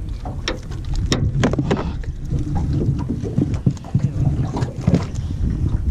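Wind rumbling on the microphone aboard a small fishing boat, with scattered knocks and clicks.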